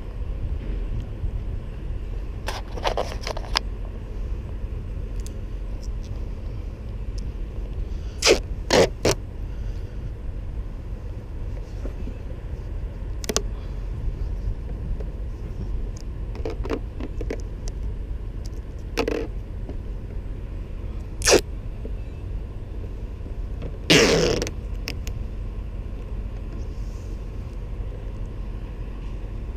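A steady low rumble with short scrapes and knocks scattered through it, the longest about 24 seconds in. No motor whine is heard.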